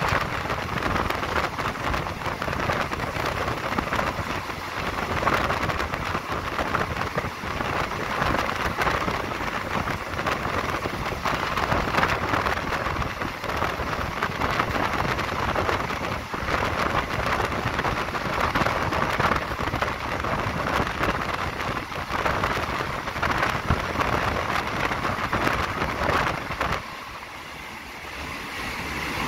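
Running noise of a moving passenger train heard from an open carriage window: a steady rushing of wheels on the rails and the wind of the train's motion, dipping briefly near the end.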